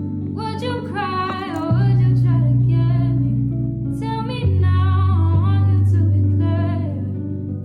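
A song with a singing voice over bass and guitar.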